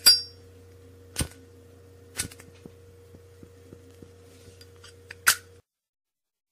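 A few sharp clinks, the first and last the loudest, with fainter ticks between them, over a steady low hum that cuts off suddenly about five and a half seconds in.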